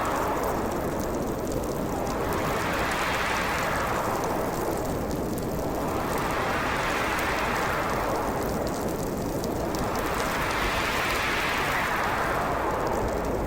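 Howling storm wind: a steady rush of noise whose pitch swells up and falls back about every four seconds, like gusts moaning through a snowstorm.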